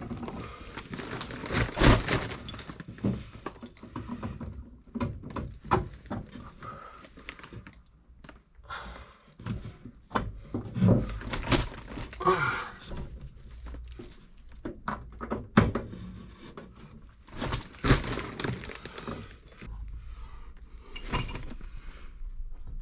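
Copper pipe and fittings being handled and pushed together: irregular knocks and metallic clinks, the loudest about two seconds in.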